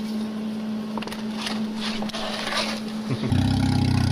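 A steady hum with a few light clicks, then a car engine starts about three seconds in and settles into a steady idle.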